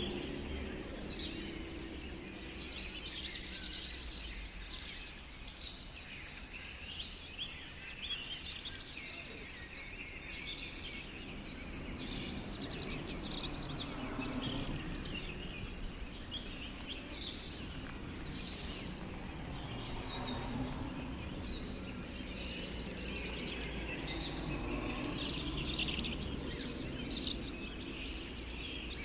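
Small birds chirping and twittering over a steady low background rumble.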